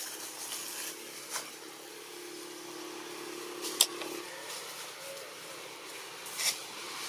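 A motor engine humming steadily, fading out about four seconds in, with a few sharp clicks, the loudest just before the hum fades.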